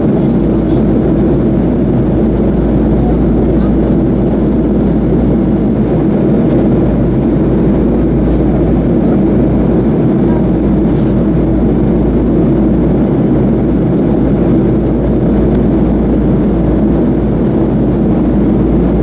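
Steady, loud cabin drone of a Boeing 737-300 in flight, its CFM56 turbofan engines and rushing airflow heard from inside the passenger cabin as an even, low rumble.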